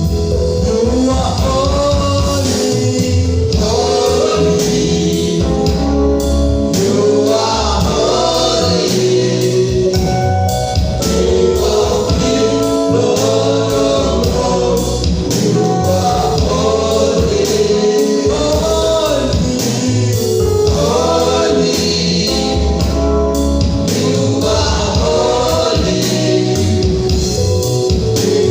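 Gospel worship music: a group of voices singing a melody over a steady bass and drum beat.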